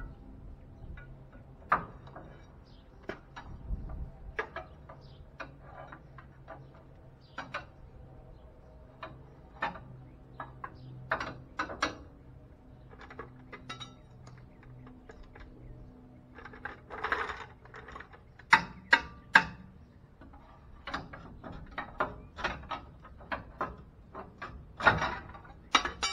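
Steel hand tools clinking and clanking on a truck's front suspension parts and the concrete: irregular metal clicks, with a few sharper, louder strikes about two-thirds of the way through and again near the end.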